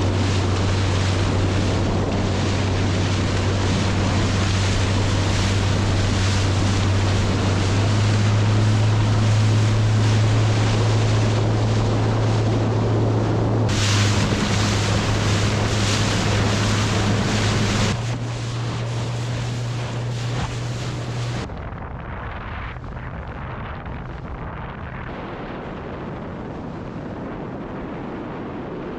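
Outboard motor of a small cabin boat running at speed, a steady low drone over water rushing along the hull and wind buffeting the microphone. The sound changes abruptly a couple of times, and about three-quarters of the way through the drone stops, leaving a quieter wash of wind and water.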